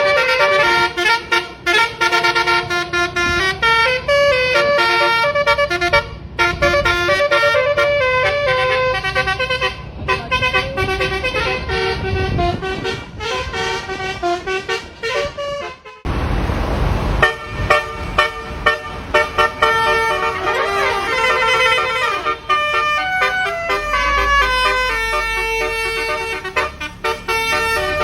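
Telolet horn on a miniature bus sounding quick tunes of stepping multi-tone notes, one melody after another. A short burst of hiss breaks in about halfway through.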